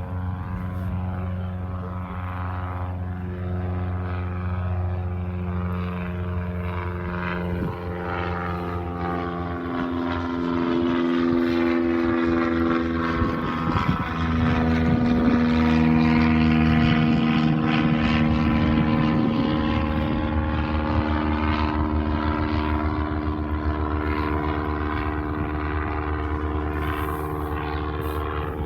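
Propeller airplane on its landing approach, its engine drone growing louder, peaking about halfway, and dropping in pitch as it passes, then running on more steadily as it moves away.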